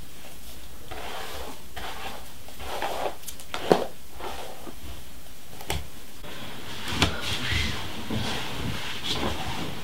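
Rustling of bedding and a few light knocks as someone moves about and sits down on a bed, over a steady low hiss.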